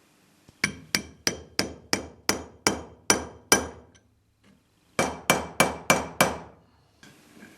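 Hammer blows on steel, each ringing briefly: about nine in a steady run at roughly three a second, a short pause, then five more.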